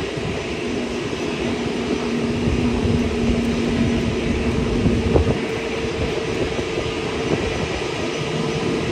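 Jet airliner engines running, a steady rumble with a held hum underneath.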